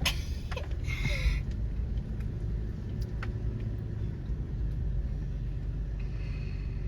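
Toyota 4Runner crawling down a muddy off-road trail, heard from inside the cabin: a steady low rumble of engine and drivetrain, with a few light clicks about three seconds in.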